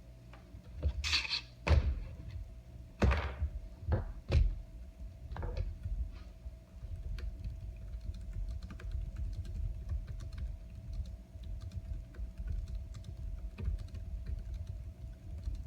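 Typing on a compact keyboard: a few louder, heavier thumps in the first five seconds, then a steady run of fast, light key clicks.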